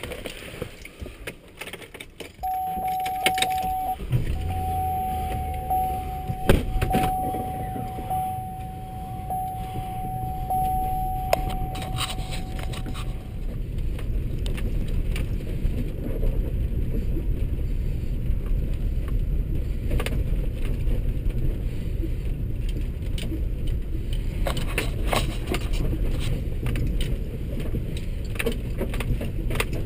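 Pickup truck being started: a steady warning chime comes on, the engine catches about four seconds in, and the chime keeps sounding for several more seconds before it stops. The truck then runs and drives over rough dirt ground, with occasional knocks and rattles in the cab.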